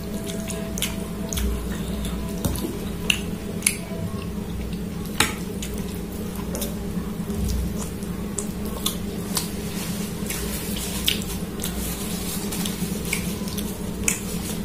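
Metal fork clinking and scraping against a glass bowl of ramen noodles, with wet clicking eating sounds as mouthfuls are taken. Short sharp clicks come every second or so over a steady low hum.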